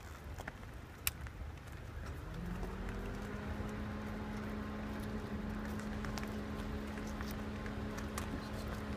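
Bison hooves clicking now and then on the asphalt as the herd walks past, over a low rumble. About two seconds in, a steady mechanical hum starts and holds, louder than the hoof clicks.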